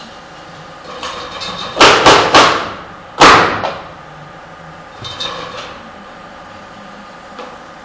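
Pneumatic coil nailer firing nails into pallet boards: three sharp shots in quick succession, then a fourth about a second later, each with a short burst of exhaust air after it. A softer clatter follows near the middle.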